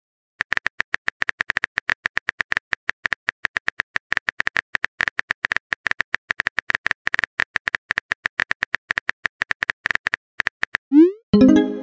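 Texting-app keyboard typing sound effect: a fast, even run of short clicks lasting about ten seconds, then near the end a short rising swoop and a burst of tones, the message-sent sound.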